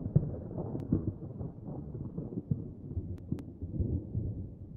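The low rumbling tail of an explosion sound effect, fading steadily, with a few sharp crackles scattered through it.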